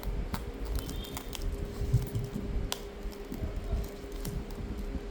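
Sparse small clicks and light scraping from hand tools working on a phone's cracked screen, over a faint steady hum.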